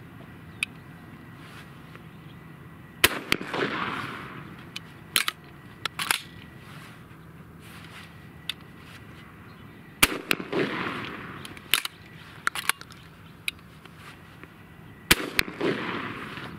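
Three shotgun shots from a Stevens 94 single-shot break-open shotgun fitted with the Alofs repeating system, the second about seven seconds after the first and the third about five seconds after that, each with a trailing echo. Between the shots come several sharp metallic clicks of the action being broken open, the next shell fed by the Alofs carrier, the action closed and the hammer cocked.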